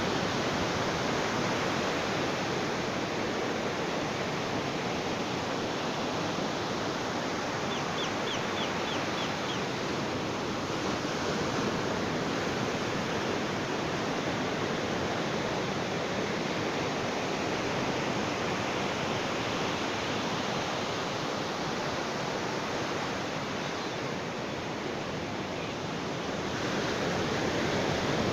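Ocean waves breaking and washing on a beach: a steady rush of surf that eases off briefly and swells again near the end. A short run of faint high ticks comes about eight seconds in.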